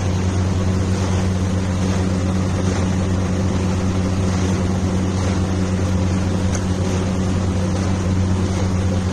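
A steady low mechanical hum, with an even noisy hiss over it and no change in pitch or level.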